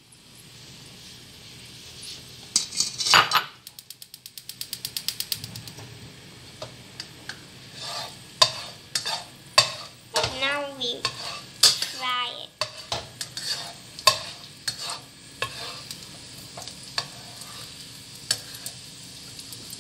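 Chopped garlic sizzling in hot oil in a non-stick wok while a plastic spatula stirs it, knocking and scraping against the pan in irregular taps. There is a louder crackling flare about three seconds in.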